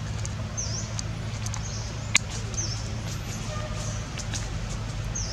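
Outdoor ambience: a high, dipping chirp repeated about once a second over a steady low hum, with one sharp click about two seconds in.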